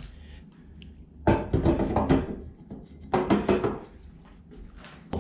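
Metal flue collar being set onto a cast-iron wood stove top and worked into place, metal clunking and scraping on metal in two bouts, about a second in and again about three seconds in.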